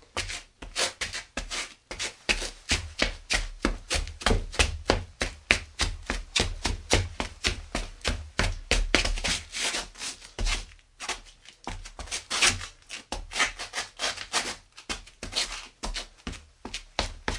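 Quick footsteps at an even pace, about four to five steps a second, each a sharp click with a low thud.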